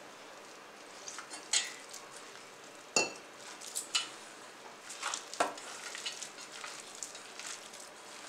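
Hands squeezing and mixing sliced onions with gram flour in a steel bowl, wet squelching and rustling in short irregular bursts as a thick onion pakora batter is worked with a little water. A sharp clink about three seconds in.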